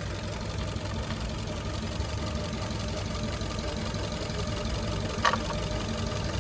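Maruti Suzuki Dzire four-cylinder petrol engine idling with its number 2 cylinder not firing. A single short sharp click comes about five seconds in.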